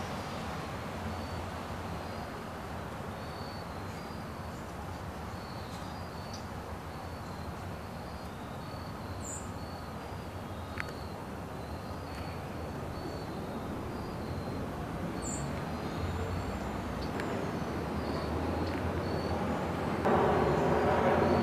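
Outdoor backyard ambience: a steady low rumble with short high chirps repeating every second or so and a couple of higher chirps. Toward the end a louder engine sound swells in, jumping up sharply near the end.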